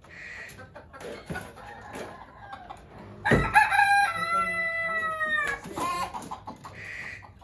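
A rooster crowing once from the coop: one long, drawn-out crow of about two seconds starting just before the middle, falling slightly in pitch at the end. Hens cluck softly before and after it.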